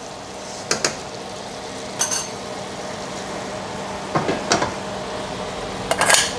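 A metal spoon stirring and knocking in a stainless steel pot of thick curry, then the pot being lifted off a gas stove's cast-iron grate, with four short metal clanks over a faint steady hiss. The loudest clank, with a brief ring, comes near the end.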